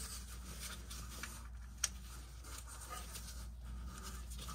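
Quiet hand-tool work on the transmission pan screws: faint scrapes and rustles, with one sharp click about two seconds in, over a steady low hum.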